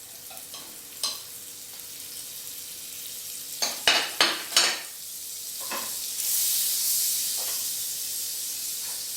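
Butter sizzling in a hot ceramic-lined frying pan, a steady hiss that starts about six seconds in. Before it, four quick knocks of a utensil against the pan, the loudest sounds.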